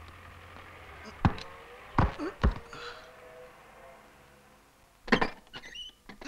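Door latch clicking about a second in, then two dull thuds as a wooden door is pushed open; a few more short knocks near the end.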